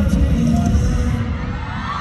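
Bass-heavy pop music over a stadium sound system, with a deep throbbing bass line; the high percussion drops out a little past halfway, leaving the bass, with the crowd faintly beneath.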